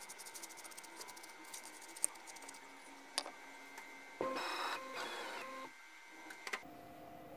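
Stepper motors of a CNC-converted PM-25MV mill whining steadily through an axis move for about a second and a half near the middle, over a faint constant electrical whine from the machine. Light scratching and small clicks come in the first couple of seconds.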